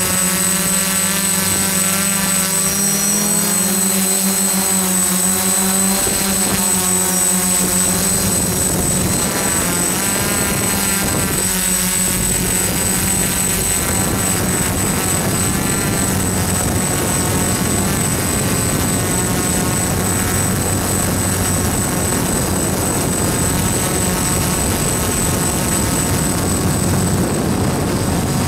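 DJI F-550 hexacopter's electric motors and Graupner e-props running in flight, heard from the camera on board: a steady propeller hum and whine whose pitches drift up and down as the motor speeds change, with a faint steady high whistle above it.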